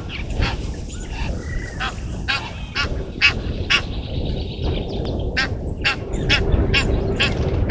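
A series of short, high, honking calls from an animal, repeated irregularly about one to two times a second, over a steady low rumble.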